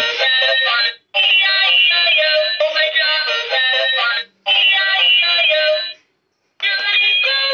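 Baby walker's electronic musical activity panel playing a synthesized children's rhyme song through its small speaker, with no bass. The song comes in stretches, broken by brief pauses about a second in, just past four seconds and around six seconds.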